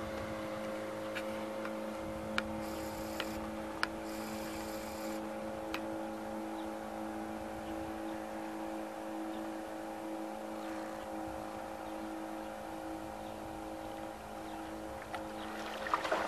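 An engine running at a steady speed, a constant low drone with a few faint clicks over it in the first few seconds.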